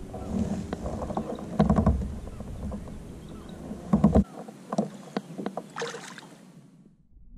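Clicks, knocks and low thumps of handling on a fishing kayak, which fade out near the end.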